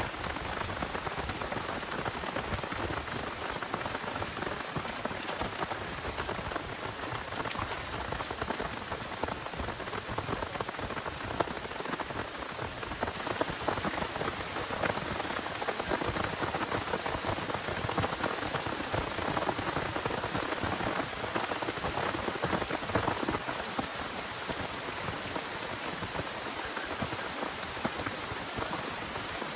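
Heavy rain falling steadily, a dense patter of drops hitting surfaces; the hiss turns brighter about halfway through.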